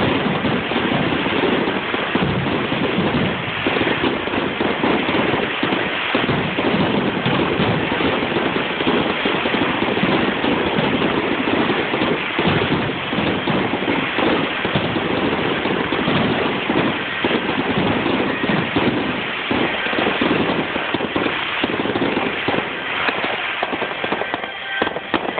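Fireworks going off in a dense, continuous barrage of bangs and crackles with no pause.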